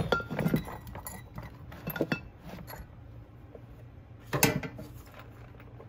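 Metal parts and tools clinking and knocking against each other and the bench as a chainsaw is handled during reassembly. The clinks come in scattered groups, the loudest about four seconds in, over a low steady hum.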